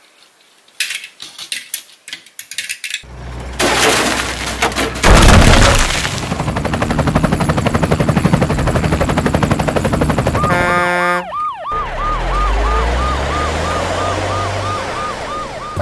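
A few light clicks, then a swelling whoosh and a heavy hit about five seconds in. From about ten seconds an electronic police-style siren yelps in quick repeated rising-and-falling cycles, about three a second.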